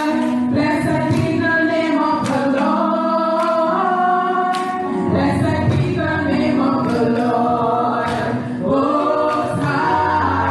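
Women's praise team singing a gospel worship song together into microphones.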